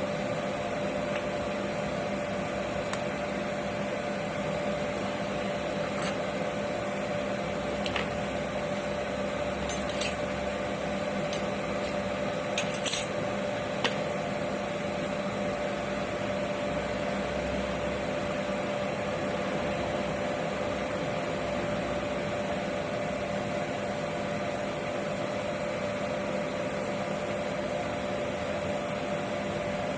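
Oil burner of a boiler running with a steady hum, its fan and pump motor holding a fixed tone. A few light metallic clinks come around the middle.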